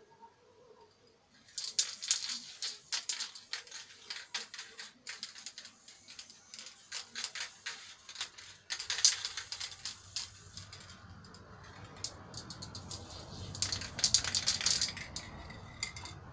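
Aerosol spray paint can being shaken, its mixing ball rattling in fast clicks, in several bouts with short pauses between.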